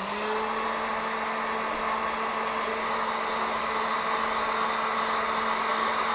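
Hot-air blower switching on, its motor spinning up with a brief rising whine, then running steadily with a constant hum and rush of air.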